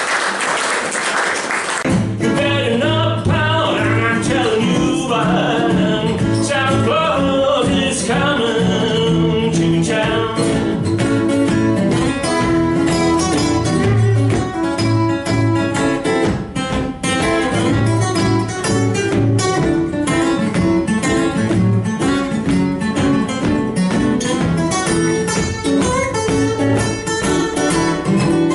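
Applause dies away, and about two seconds in two acoustic guitars start playing together, strumming chords and picking melody lines over a steady bass.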